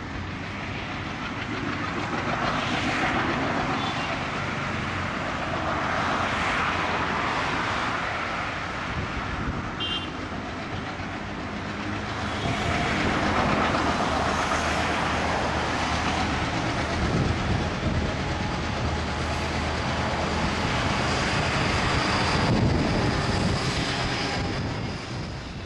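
ALCo-design WDM-class diesel locomotive working hard under load as it hauls a passenger train, its engine throbbing over the rumble of wheels on the rails. The sound swells louder as the train approaches.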